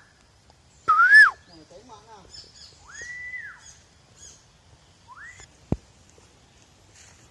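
Black-naped oriole giving loud, fluty whistled calls: a rising-then-falling note, a long slurred whistle and a short upward whistle, with a single sharp click just before the last second or so.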